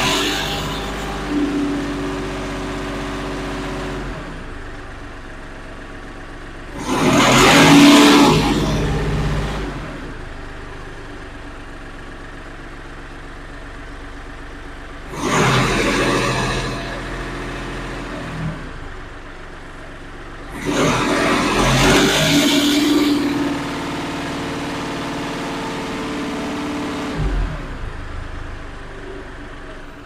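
Kioti NS4710 tractor's diesel engine idling and revving up whenever a hydrostatic drive pedal is pushed, the linked pedal kit raising engine speed with the pedal. It is revved at the start and drops back, then surges three more times, each for a second or two and the last for about three, settling back to idle between.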